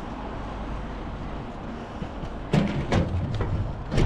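Steady wind and road noise from riding a bicycle, with four sharp knocks and rattles in the second half.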